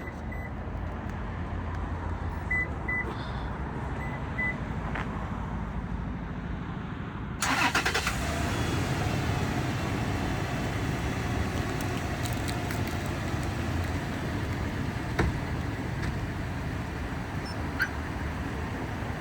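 A few short high beeps from the car alarm system, then about seven seconds in the car's engine cranks briefly and catches, and runs steadily at idle: a remote start.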